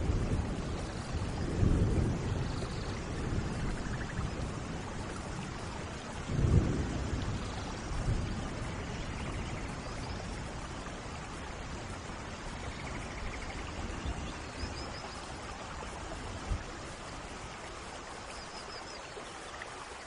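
Steady rain falling, with low rolls of thunder in the first few seconds and a stronger rumble about six seconds in; the second half is rain alone.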